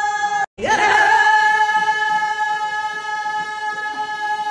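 A group of women singing in unison without instruments, holding one long steady note. The sound cuts out completely for a moment about half a second in.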